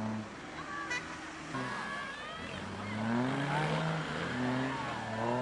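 Off-road 4x4 truck engine running, falling away just after the start, then revving up again about halfway through, with people's voices over it.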